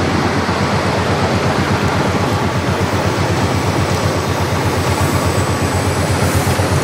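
GE 44-ton diesel switcher running as it rolls slowly past, its engines giving a steady, fast low throb.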